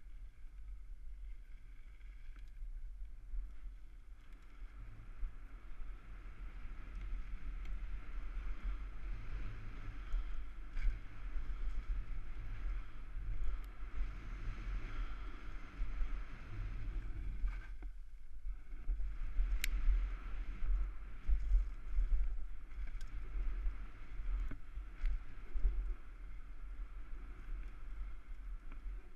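Wind rumbling on a helmet camera's microphone as a bicycle rides a dirt forest trail, with the rattle and crunch of the bike over rough, leaf-covered ground. It grows louder after the first few seconds, and a sharp click sounds about two-thirds of the way in.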